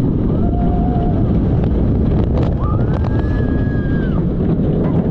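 Steel roller coaster train at speed from the front seat: a steady rush of wind over the microphone and rumble from the train. Riders let out two held screams on top, a lower one near the start and a longer, higher one in the middle.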